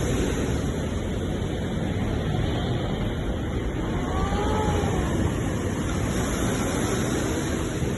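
Sea waves washing onto the shore in a steady, continuous surf, with a faint brief gliding cry about halfway through.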